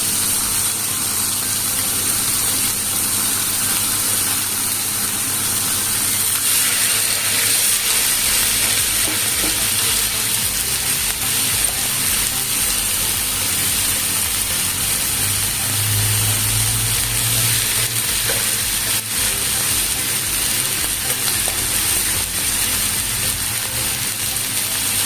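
Marinated boneless chicken breast sizzling steadily in oil on a hot grill pan.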